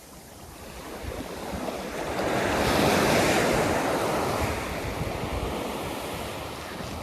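An ocean wave breaking and washing up a surf beach. It builds over about two seconds, crashes about three seconds in, then slowly fades as the wash runs out, with wind on the microphone.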